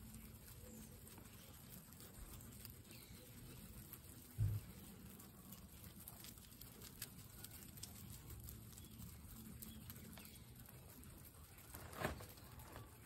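Guinea pigs chewing and tearing fresh grass, faint crunching with scattered small clicks and rustles. A short low thump comes about four and a half seconds in, and a louder rustle near the end.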